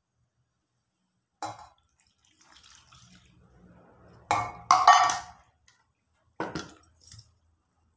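Liquid poured from a steel bowl into a steel mixing bowl, with clinks and knocks of the steel bowls against each other and the table. There is a sharp clink about a second and a half in, a soft pour after it, a loud clatter of steel about four to five seconds in, and another knock near the end.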